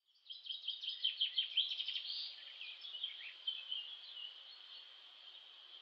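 Birdsong, rapid high chirps and trills that start suddenly, over a steady high-pitched insect drone. The chirping thins out after about two seconds and the insect drone carries on alone.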